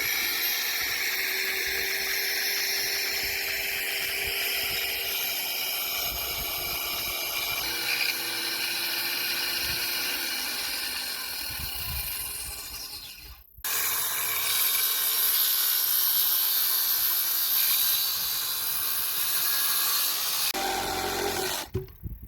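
Power saw cutting through 6x6 pressure-treated beams: a steady, high whine of the blade in the wood. It stops abruptly about two-thirds of the way in, then starts again for a second cut.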